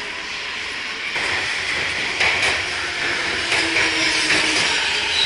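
Subway train moving along the platform close by: a steady rush of wheel and running noise that grows louder about a second in, with a few sharp clicks of the wheels on the rails.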